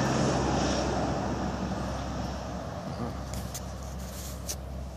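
Engine of a trailer-mounted air compressor running steadily with an even low hum, with a few light clicks a little past the middle.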